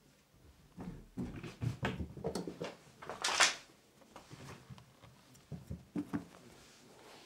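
Irregular soft knocks and thumps with rustling, and one louder rustling hiss about halfway through, followed by a few scattered clicks.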